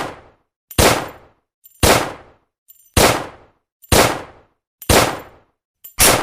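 Walther P38 9mm pistol fired in single shots about once a second, seven in all, each a sharp report with a short ringing decay and a faint click just before it.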